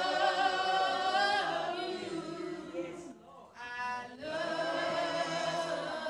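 Worship singing in a church service: long held sung notes, broken by a short pause about three seconds in.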